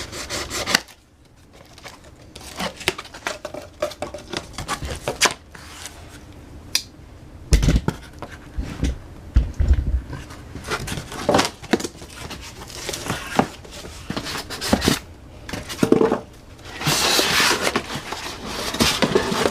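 Unboxing a 4-inch bench vise: packaging being cut, torn and crinkled, with scattered knocks and a few low thumps as the vise and box are handled. The loudest part is a long stretch of tearing and crinkling near the end.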